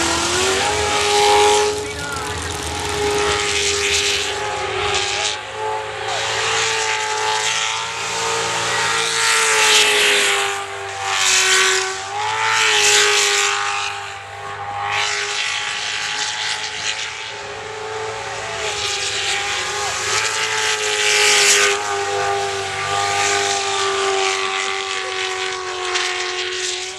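Jet sprint boat engine pulled up to high revs and held there at a near-steady high pitch, dipping briefly about halfway and easing off slightly near the end. Rushing noise swells over it several times.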